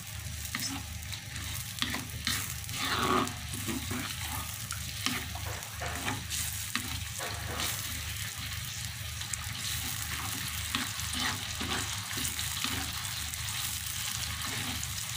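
A thin, watery sauce sizzling in a wok while a plastic spatula stirs it, scraping and tapping against the pan, over a steady low hum.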